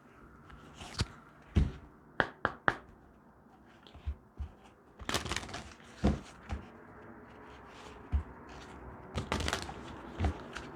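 A deck of tarot cards being shuffled and handled by hand: short bursts of card rustling and scattered sharp taps as cards are knocked together and set down.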